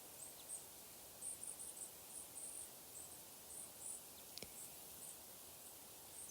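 Quiet outdoor ambience with faint, very high-pitched short chirps repeating irregularly, often in quick runs of two to four, over a soft steady hiss. A single soft click comes about four seconds in.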